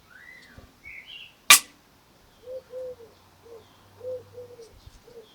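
A single sharp metallic snap about a second and a half in, as the strong clamp magnet jumps onto the steel scissors. Short bird chirps come before it, and a series of short low calls after.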